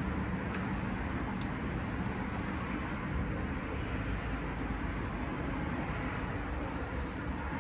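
Steady low rumbling background noise, with a couple of faint light clicks about a second in.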